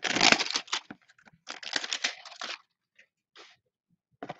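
A Panini Mosaic blaster box of trading cards being torn open: packaging tearing and crinkling in two spells of about a second each, then a faint rustle.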